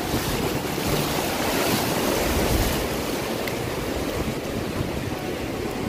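Surf washing onto a sandy beach, a steady rush of waves that swells a little about two seconds in, with wind buffeting the microphone.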